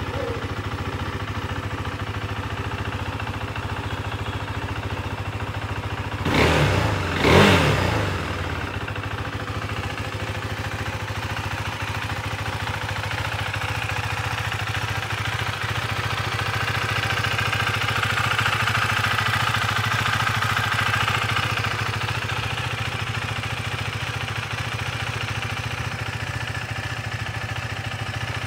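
KTM 390 Duke's single-cylinder engine idling steadily, with two quick blips of the throttle about six and seven seconds in.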